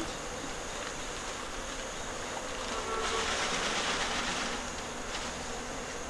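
A mass of African honeybees buzzing steadily, disturbed during a night hive transfer. About three seconds in, the buzz swells and turns hissier for a couple of seconds, then settles back.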